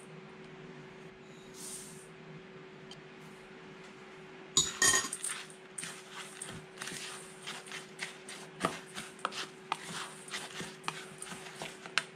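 Plastic spatula stirring a dry mix of corn flour and sunflower seeds in a stainless steel bowl: a ringing knock on the metal bowl about halfway through, then a run of irregular scrapes and taps against its sides.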